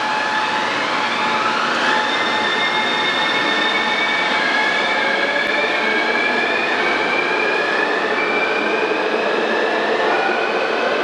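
Hitachi Rail Italy-built driverless metro trains of the Circular Line running through the station. There is a high electric whine from the traction equipment, made of several tones; one rises in pitch about two seconds in and others hold steady. Under it runs the even rumble of the wheels on the rails.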